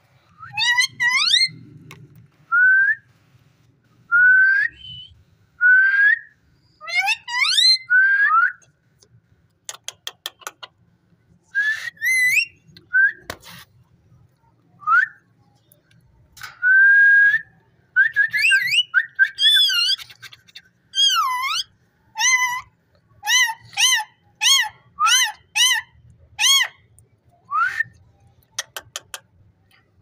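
Indian ringneck parakeet whistling a long series of mimicked whistles: short rising and swooping notes, one longer held note about halfway through, then a quick run of repeated dipping notes near the end, with a few sharp clicks in between.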